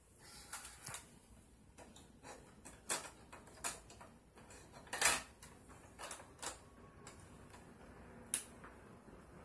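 Irregular plastic clicks and knocks from the cassette compartment and controls of a Talking Mother Goose doll being handled, about nine in all, the loudest about five seconds in.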